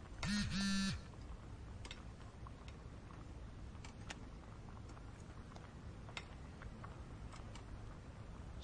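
A smartphone vibrating with two short buzzes back to back, an incoming message alert, followed by faint ticks over room tone.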